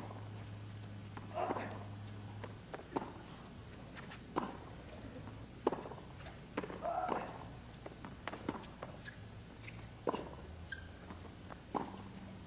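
Tennis ball struck back and forth in a rally: sharp racket hits about every one and a half seconds, some with a short vocal sound alongside.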